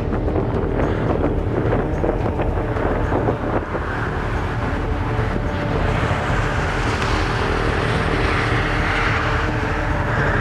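Wind buffeting the microphone, with the hiss of a passing vehicle swelling from about four seconds in and fading again near the end.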